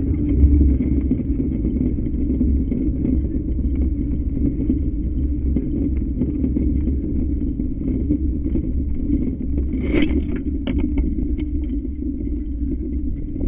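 Unpowered soapbox cart rolling on tarmac, heard from a camera mounted on the cart: a steady low rumble of its spoked wheels and chassis over the road surface, with a few clattering knocks about ten seconds in.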